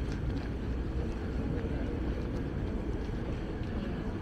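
Outdoor background noise: a steady low rumble with no distinct events.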